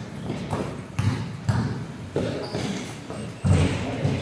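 Basketball bouncing on an indoor court: several dull thuds, the loudest about three and a half seconds in.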